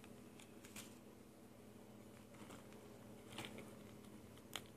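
Near silence with a few faint taps and rustles of card-stock tags being handled, about a second in, around three and a half seconds in, and near the end.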